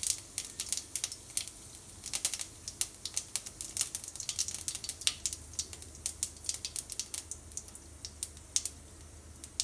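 Cumin seeds crackling and popping in hot mustard oil: a quick, irregular run of sharp little pops that thins out near the end. This is the tempering stage, the sign that the oil is hot enough and the seeds are done.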